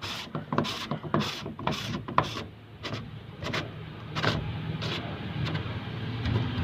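Diesel filter cup being tightened into its housing: a series of short sharp mechanical clicks, about two a second at first and then sparser.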